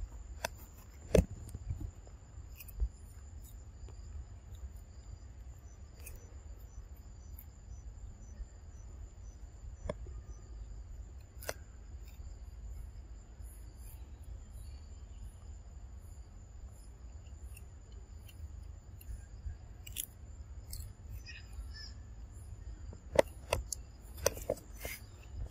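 Steady high-pitched drone of insects singing, with a short run of evenly spaced chirps in the middle. Scattered sharp clicks and crunches, a cluster near the end, come from a macaque chewing raw vegetables.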